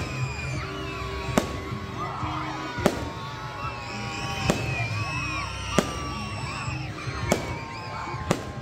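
Fireworks going off: a sharp bang roughly every second and a half, about seven in all, with music playing underneath.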